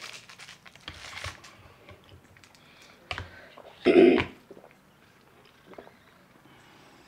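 Light handling noise of plastic straw wrappers being torn off and straws pushed into small juice cartons: scattered clicks and crinkles. About four seconds in there is one short loud burst, after which it goes almost quiet as they drink.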